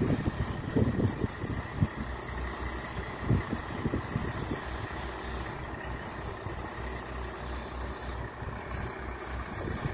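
An engine idling with a steady, evenly pulsing low throb, with a few dull knocks in the first few seconds.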